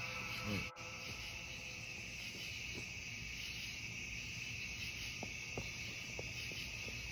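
Night insects, crickets, trilling in a faint, steady high-pitched drone.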